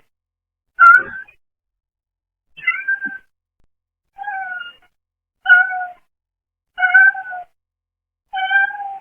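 A brown tabby cat meowing, six short meows about one and a half seconds apart, heard through a pet camera's low-quality microphone.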